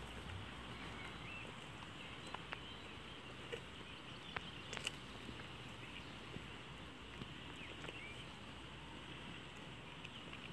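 A goat chewing a mouthful of bread close by: irregular soft crunching clicks from its jaws. Faint bird chirps sound in the background.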